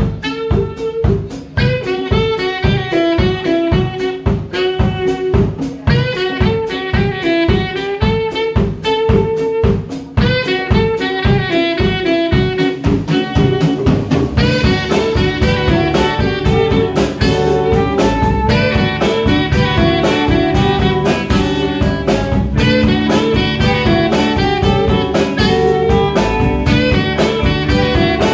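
Live jazz band playing: drum kit and hand percussion keeping a steady beat under alto and tenor saxophones playing the melody together, with electric bass and guitar. The sound gets fuller about halfway through.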